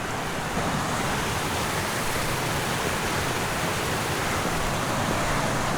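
Mountain creek rushing steadily: a constant, even wash of running water.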